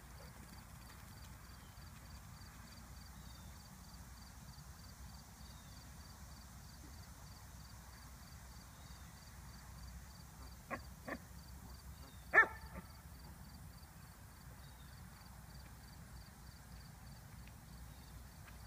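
A single short, loud dog bark a little past the middle, with two fainter sharp sounds just before it, over a steady open-air background with a faint regular high ticking.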